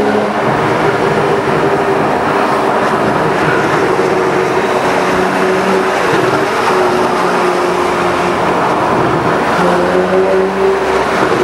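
Porsche 911 Carrera 4S (997) flat-six engine and sports exhaust heard from inside the cabin while driving, over road and tyre noise. The engine note holds steady most of the time and picks up a little about ten seconds in.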